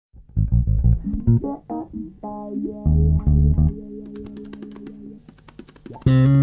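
Instrumental music with plucked bass notes and keyboard or synthesizer chords, a held chord in the middle and a louder chord entering near the end.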